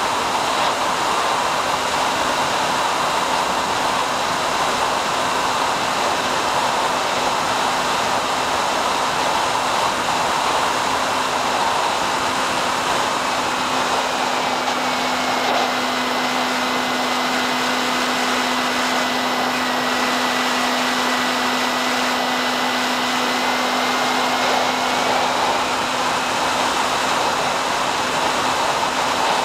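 SkyHunter RC plane's electric motor and propeller running steadily in flight, heard onboard as a constant rushing hum with a low drone and a faint high motor whine that drops slightly in pitch midway and rises again.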